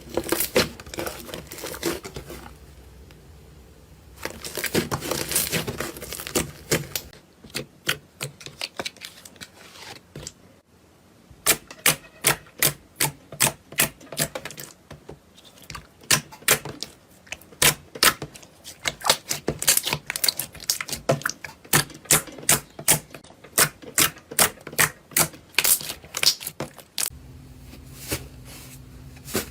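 Slime being pressed and squeezed by hand, giving runs of sharp crackling clicks and pops, about two or three a second through most of it, with a denser crackle in places.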